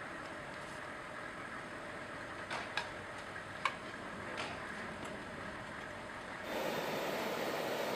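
Steady jet-engine noise on a flight line, with a few light clicks and knocks in the middle. About six and a half seconds in it changes abruptly to a louder, steady jet hiss with a faint high whine.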